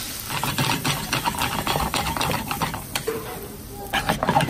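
Metal fork scraping and clicking against a frying pan as spaghetti is stirred and tossed in it, a rapid run of small scrapes that grows busier near the end.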